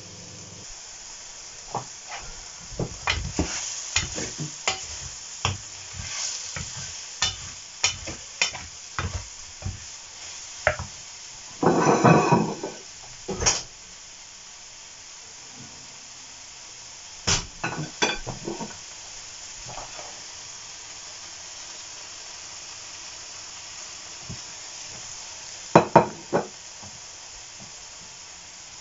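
Sliced bolete (porcini) mushrooms sizzling in a frying pan with a steady hiss, while a wooden spatula stirs them and clicks, scrapes and knocks against the pan in quick runs over the first half. There are a few more knocks later and two sharp knocks near the end.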